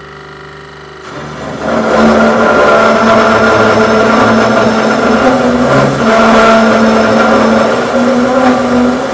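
Cold saw (coolant-fed circular metal saw) cutting 4 inch by 3/8 steel flat bar, its blade due for changing. The saw runs more quietly for about the first second, then gets louder as the blade bites into the steel, and cuts on steadily with a loud whine.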